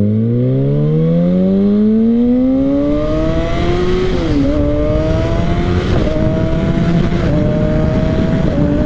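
Kawasaki ZX-6R inline-four with an M4 aftermarket exhaust accelerating hard: the engine note climbs steadily in pitch for about four seconds, dips briefly, then pulls on at a high, nearly steady pitch with a few small jumps.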